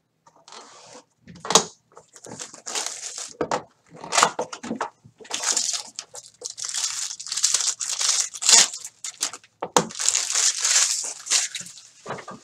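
Plastic wrapping being torn from a Bowman Chrome trading-card box and a foil card pack ripped open by hand, with irregular bursts of crinkling and tearing.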